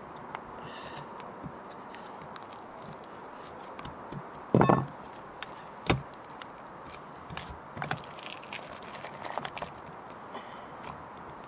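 Small clicks, scrapes and crackles of a metal RV antenna mounting plate being pulled loose by hand from old, gummy lap sealant on a rubber roof. There is one loud metallic clatter a little before halfway and a sharp click about a second after it.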